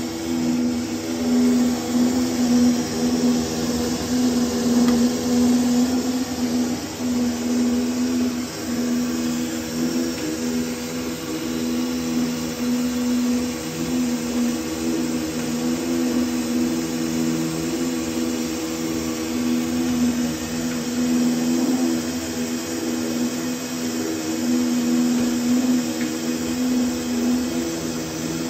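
Foliant Gemini Compressor 400A laminating machine running: a steady motor hum with a whirring noise over it.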